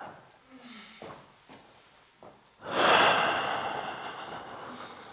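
A performer's voice over a microphone making non-verbal vocal sounds as a vocal warm-up: a few short, faint sounds, then a loud one that starts suddenly about two and a half seconds in and fades away over about two seconds.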